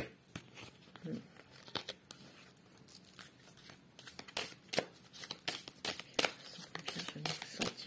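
Oracle cards shuffled by hand: a run of soft, quick clicks and riffles, sparse at first and growing denser a little past the middle.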